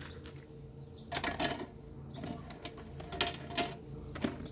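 Scattered sharp clicks and light rattles of small scrap box-fan parts being handled, over a steady low hum.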